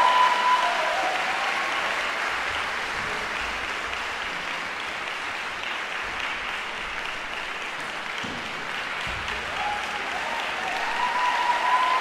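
Audience applauding in a concert hall, easing off through the middle and swelling again near the end.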